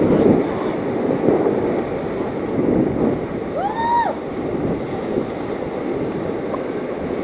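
Whitewater rapids rushing steadily around a raft, with wind buffeting the microphone. About four seconds in, a short high call rises and falls over the water noise.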